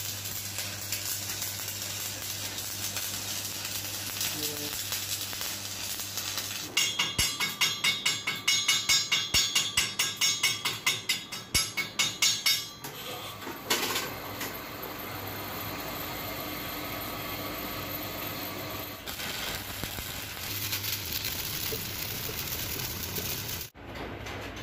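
Electric arc welding crackling and sizzling on a truck drive shaft turning in a lathe, over a steady low hum. In the middle comes a run of loud rhythmic pulses, about three a second, for some six seconds.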